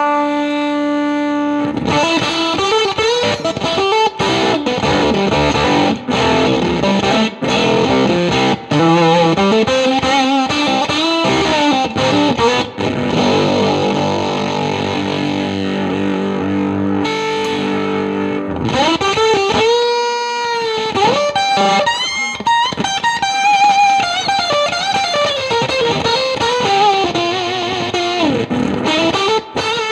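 Electric guitar played through a Spruce Effects Volcanoes silicon/germanium hybrid fuzz pedal into a Milkman The Amp 100, with a distorted, fuzzy tone. A held note rings for about two seconds, then a lead line follows with string bends and vibrato.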